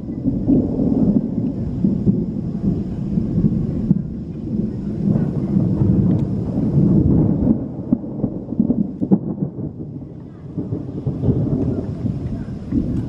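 Rolling thunder: a long low rumble that swells and eases several times without stopping.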